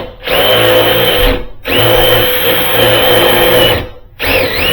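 Power drill running a self-drilling screw into a hollow metal door to make a screw hole, with a steady high motor whine. It runs in three bursts with short stops between them.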